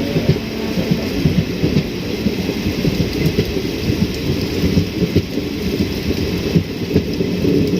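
Heavy monsoon rain: a loud, steady, low rushing noise with constant rapid flutter.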